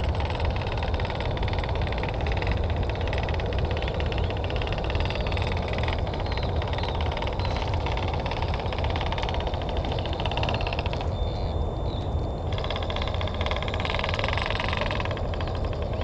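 Micro RC crawler's small electric motor and geared transmission whirring as it crawls up rocks, easing off for about a second and a half around eleven seconds in, over a steady low rumble.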